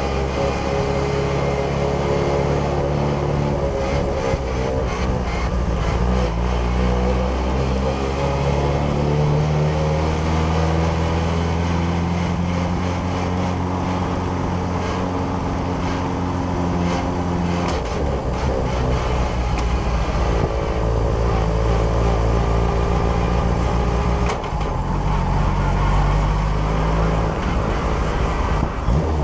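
Onboard sound of a BAC Mono's four-cylinder engine running on track at a fairly steady engine speed, its note shifting a few times in the second half.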